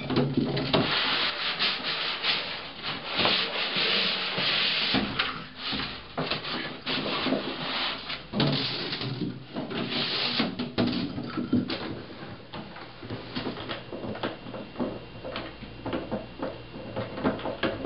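A puppy drags and shoves an empty plastic container across a hardwood floor: rough scraping and rubbing of plastic on wood, broken by short knocks and clatters. It gets softer in the last few seconds.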